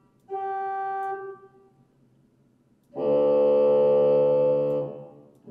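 Sampled pipe organ sounding through speakers. A single held note lasts about a second and fades out. After a pause, a louder, fuller note or chord is held for about two seconds, as different stops are tried.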